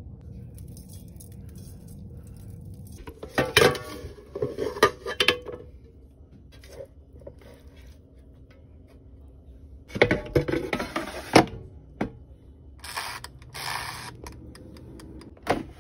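Raw chicken drumsticks being handled in a stainless steel bowl and set into an air fryer's metal basket: several short bouts of clattering and knocking of meat against metal. Near the end, the air fryer's timer dial is turned.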